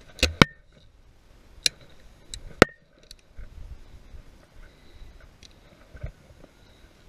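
Sharp metallic clicks and knocks from a shotgun being handled: two in quick succession at the start, then two more, about a second and a half and two and a half seconds in. The loudest clicks leave a brief ring.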